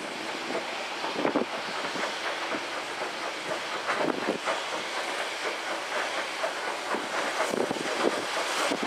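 LMS 3F 'Jinty' 0-6-0 tank locomotive working a goods train at low speed: slow, uneven steam exhaust beats over a steady hiss.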